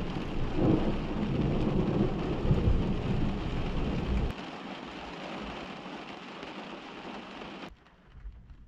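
Thunder rumbling over the steady hiss of heavy rain. The rumble stops abruptly about four seconds in while the rain goes on, then the rain cuts off sharply near the end.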